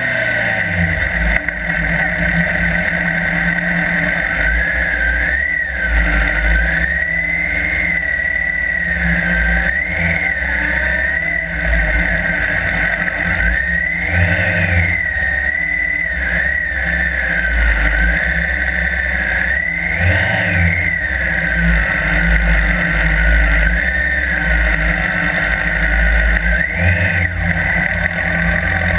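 Police motorcycle's engine running under changing throttle while ridden, its pitch rising and falling every second or two.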